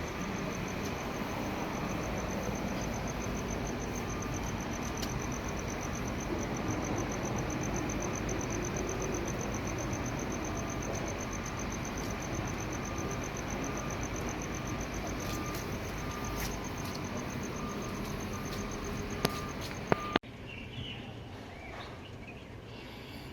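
Electronic beeping from a non-contact AC voltage detector and tracer: short beeps repeating, more often through the middle, over a high fast-pulsing tone and steady background noise. A couple of clicks come near the end, and then the sound drops off suddenly.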